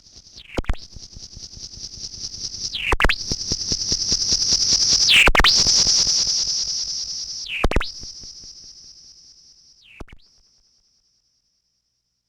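Sound of Shadows PT2399 digital delay module sounding a steady high whistling tone over rapid pulsing. The pitch dips sharply and springs back five times, about every two and a half seconds. It swells louder to a peak around the middle and then fades out shortly before the end.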